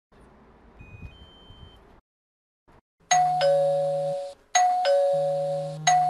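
A HeimVision GREETS 1 smart video doorbell being rung: a faint short two-pitch electronic beep as the button is pressed, then about three seconds in a loud two-note ding-dong chime, high then lower, repeating three times in quick succession as the visitor alert.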